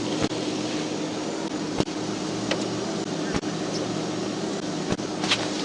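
Steady fan-like hum of an idling police patrol car and its blower, with a constant low tone under it. Sharp single clicks come about every one and a half seconds.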